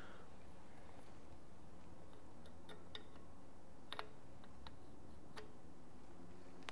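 A few light clicks of metal on metal, the clearest a quick double click about four seconds in, as a crankshaft thrust bearing shell is set into its saddle in an aluminium air-cooled VW engine case half, over a low steady shop hum.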